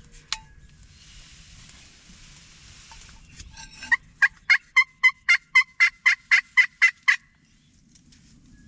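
Turkey hen yelps made on a hunter's turkey call to draw a gobbler in: a loud, regular run of about twelve yelps, roughly four a second, lasting about three seconds, starting a little past the middle.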